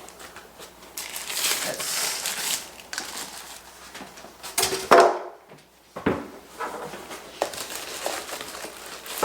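Packaging rustling and crinkling as vacuum parts are unpacked, with scattered clicks and one louder crunch about five seconds in.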